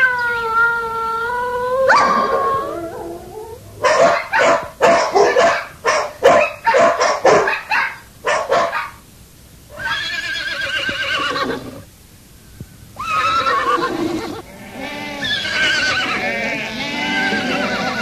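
Boxer dog barking in a quick series of short barks from about four to nine seconds in, set between long, wavering high-pitched tones at the start and near the end.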